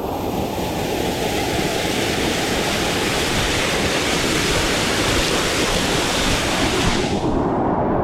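Waterfall's falling water making a steady, loud rushing noise. The hiss grows brighter about half a second in and dulls abruptly about seven seconds in.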